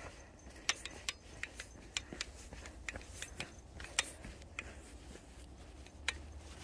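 Footsteps crunching on dry fallen leaves along a dirt path: irregular crisp crackles, a few each second.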